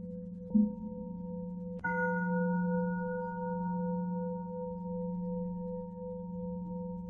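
A bell struck about two seconds in, its ring fading slowly over a steady low drone. A short, softer low strike comes about half a second in, and another right at the end.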